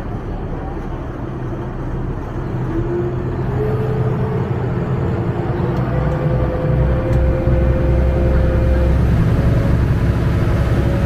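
Tour boat's engine running with a low rumble that grows louder, and a steady whine that steps up in pitch about three seconds in.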